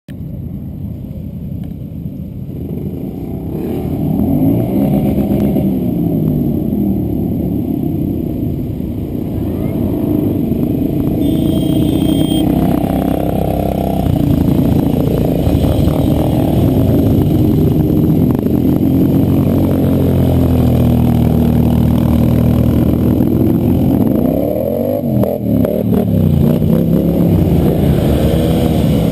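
Several ATV quad-bike engines running and revving as the quads ride past one after another, their pitches rising and falling and overlapping. The engines grow louder over the first few seconds.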